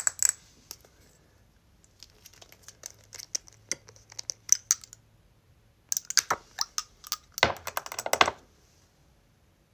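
Long acrylic nails tapping and clicking on a glass dropper bottle and its dropper cap, ASMR-style. Scattered taps build to a fast run of clicks near the end.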